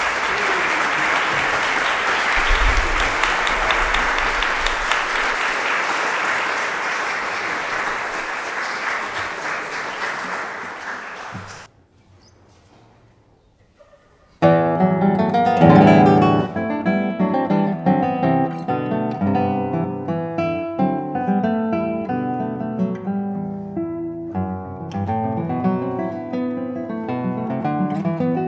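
Audience applauding for about twelve seconds, stopping abruptly. After a brief hush, a solo nylon-string classical guitar starts playing a fingerpicked piece.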